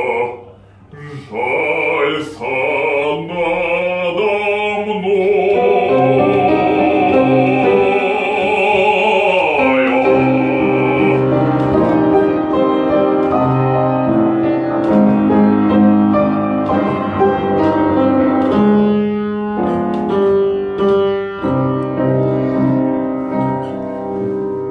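Operatic singing with piano accompaniment: a trained voice holds long notes with vibrato.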